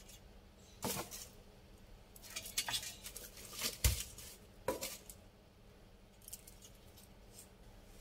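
Breaded shishamo fish being turned over by hand in an air fryer basket: scattered light clicks, scrapes and knocks against the basket, the loudest knock about four seconds in, then only a few faint ticks.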